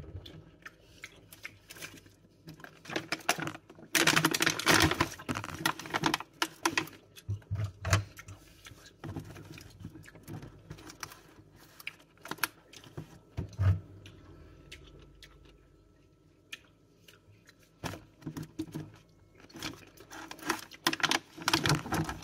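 Intermittent rustling and clicking of a clear plastic food tub and a bunch of grapes being handled as grapes are plucked off their stems one by one. The sound comes in irregular bursts, loudest about four seconds in and again near the end.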